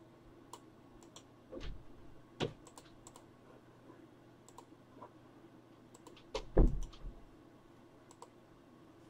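Computer mouse and keyboard clicking at irregular intervals, with two dull thumps, the second and louder one about two-thirds of the way through.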